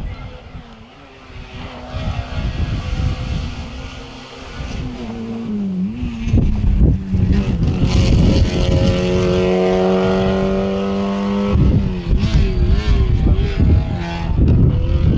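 Rally car approaching at speed, its engine note growing louder and holding high revs for several seconds, then the revs wavering and changing quickly near the end as it goes past.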